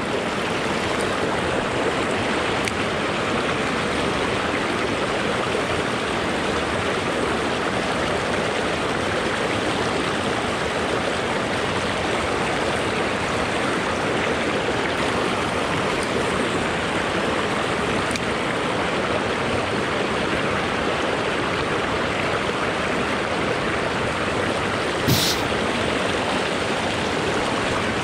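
Mountain stream rushing steadily over boulders and shallow riffles, with one short, sharp click near the end.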